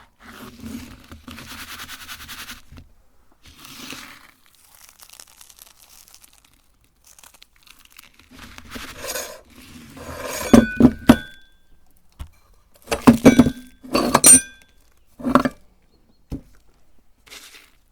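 Meat grinder crushing hard sweets: a short grinding, crunching stretch at the start, then a run of sharp clinks and cracks, some with a brief ring, loudest in the second half.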